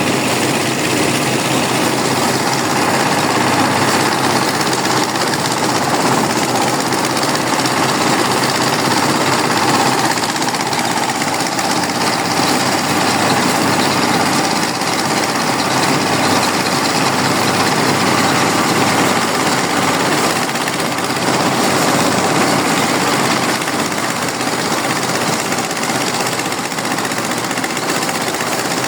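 Engine-driven rice-harvest machinery running steadily and loudly, with no pauses.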